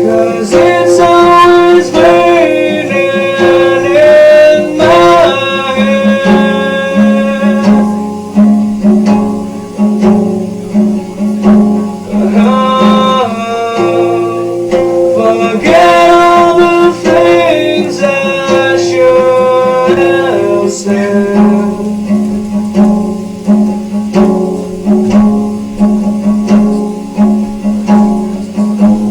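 Guitar music: a plucked accompaniment with a steady low note under a melody line whose notes bend and slide.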